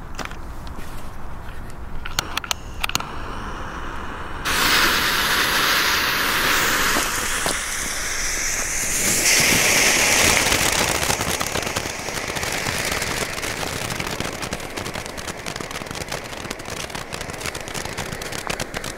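Two small 'Pyro Head' youth-firework fountains spraying sparks. After a few scattered clicks, a loud hiss starts suddenly about four and a half seconds in, is loudest around ten seconds, and then fades off, with crackling throughout.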